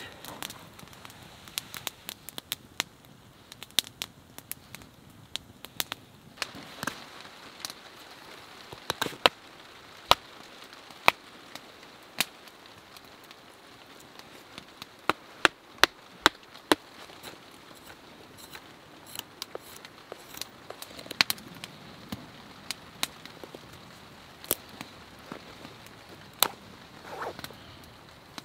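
A wood campfire crackling with sharp pops, then a fixed-blade knife whittling a thin wooden stick: irregular sharp clicks and short scrapes as the blade shaves the wood.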